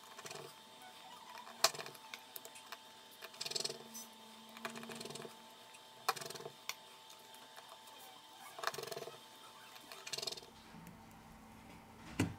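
Precision screwdriver fastening the small screws of a phone's loudspeaker module into its frame: several short scraping turns and sharp clicks of the tool and screws against the metal, with a louder knock near the end.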